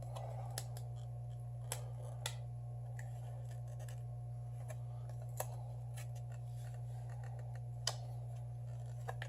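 Scattered sharp clicks and light scrapes of thin prying tools working against a Samsung Galaxy S7 Edge as its glass is separated, over a steady low electrical hum.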